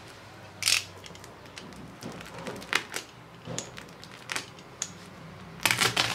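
Plastic shrink wrap around a box crinkling and crackling as a utility knife slices through it, in sharp, irregular crackles. The loudest comes about a second in, and a denser run of crackling comes near the end.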